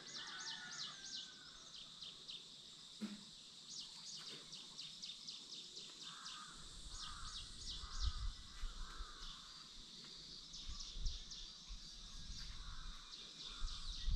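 Faint outdoor birdsong and insect chirping: trains of quick high chirps, with a lower call repeating a few times a second midway and again near the end, and a few short low rumbles.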